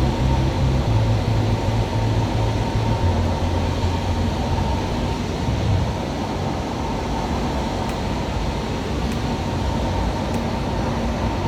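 Steady drone of a Cessna 172's engine and propeller, heard inside the cabin in flight. Low, shifting tones sit under the drone for the first six seconds, and after that it runs evenly.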